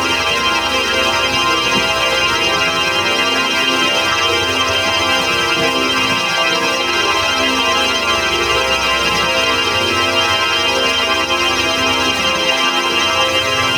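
Organ sound effect: a dense, many-note organ chord held at a steady level without a break, with a shimmering texture.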